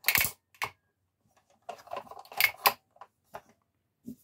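Hard plastic clicks and clacks from the parts of a DC Super Powers Batmobile toy being handled and snapped into place: a sharp snap at the start, a cluster of rattling clicks around the middle, then a few light ticks.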